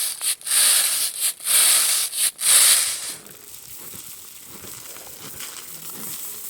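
Dry soybean plants rustling and crackling as they are handled, in a quick series of crinkly bursts for about three seconds, then a fainter steady hiss.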